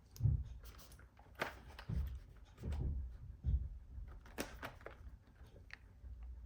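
Irregular light clicks, taps and low thumps of hands working on a laptop's hardware and handling its parts.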